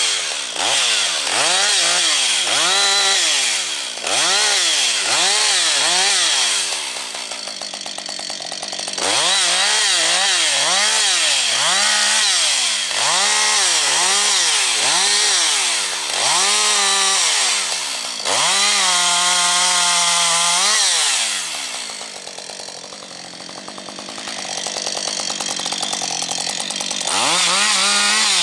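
Husqvarna 555 two-stroke chainsaw with first-generation autotune, revved up and down in quick bursts about once a second while limbing a pine tree. Twice it drops back to idle for a few seconds, and once it is held at steady full throttle for about two seconds.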